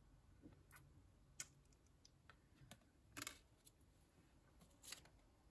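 Near silence with a handful of faint clicks and light taps from oracle cards being handled, the loudest a short rustling click a little past halfway.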